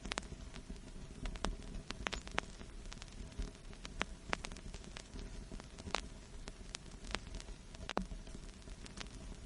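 Vinyl record surface noise: irregular crackles and pops, a few each second, over a steady low rumble and hiss.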